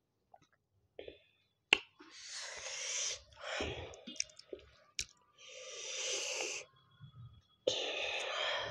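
Close-miked eating sounds: chewing and lip smacks with a few sharp mouth clicks, broken by three breathy breaths of about a second each.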